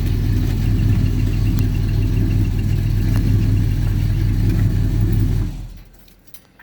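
1970 Chevy Malibu's engine running at a steady idle, a low, even rumble that stops about five and a half seconds in.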